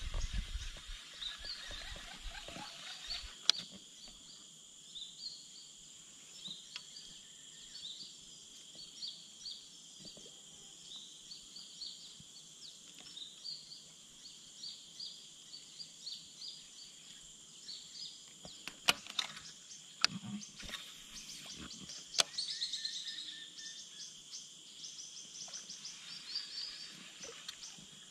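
Outdoor natural ambience: a steady high insect hum with many short bird chirps repeating over it. There are a few sharp clicks around two-thirds of the way in.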